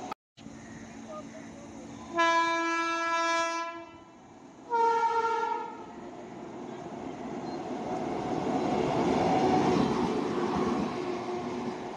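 WAG-9 electric locomotive running light, with no wagons, sounds its horn twice: a longer blast, then a shorter, higher-pitched one. Its running noise then builds as it passes close by, loudest near the end, and begins to fade.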